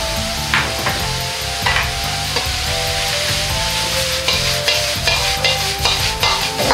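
Vegetables sizzling in a hot Chinese wok (中華鍋) over a high gas flame, with a metal wok ladle scraping and clanking against the pan again and again as the food is stir-fried. Background music plays underneath.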